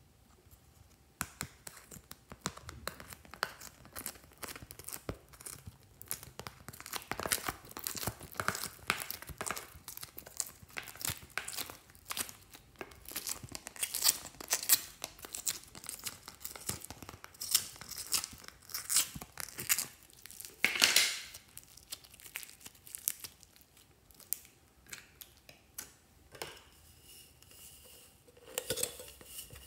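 Slime being squeezed and scooped by hand out of the wells of a plastic palette tray: a dense run of small sticky crackles and clicks.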